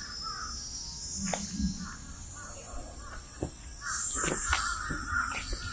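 Crows cawing repeatedly, with a steady high-pitched buzz in the background that grows louder about four seconds in.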